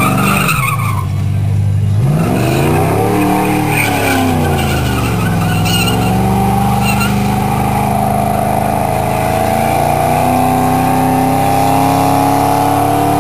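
Classic American car doing a burnout: the engine revs hard while the rear tyres spin and squeal on concrete. The revs drop and climb again in the first few seconds, then hold high and creep slowly higher.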